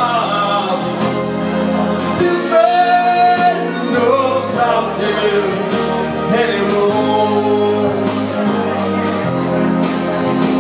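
A man singing long, held notes through a microphone over an instrumental backing with a steady beat.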